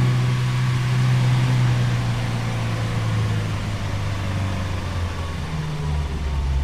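Vehicle engine running, its hum falling slowly in pitch as it slows, dropping lower again near the end.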